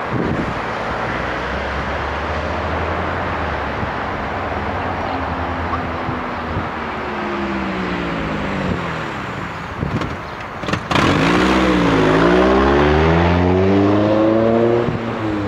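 Road traffic at a stop-sign intersection. One car's engine note falls away, then about eleven seconds in a louder vehicle pulls off close by, its engine note dipping and then climbing as it accelerates through the intersection. A steady traffic and wind hiss runs underneath.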